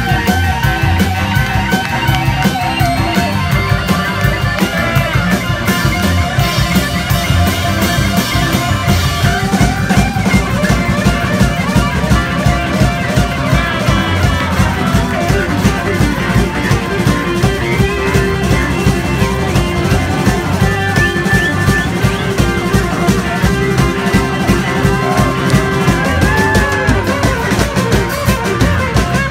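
Live rock band playing loudly: electric bass, electric guitars, keyboards and a drum kit keeping a steady beat.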